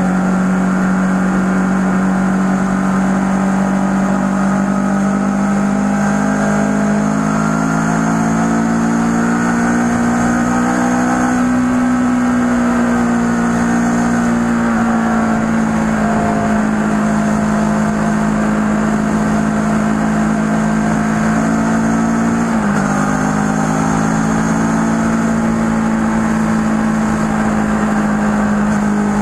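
Kawasaki ER-6n's parallel-twin engine running under way at a steady cruise, heard from the rider's seat. The engine note climbs gently and then eases off around the middle, and near three-quarters of the way through it dips suddenly and picks up again.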